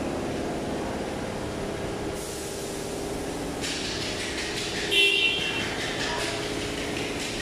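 Steady machinery hum and hiss, with a short, loud, high-pitched toot about five seconds in.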